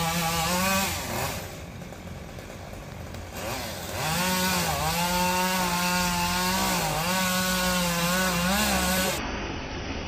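Two-stroke chainsaw running at high revs, cutting into a palm trunk. The note eases off for about two seconds near the start, then comes back and holds, dipping briefly twice as the chain is loaded. It gives way to a duller rushing noise near the end.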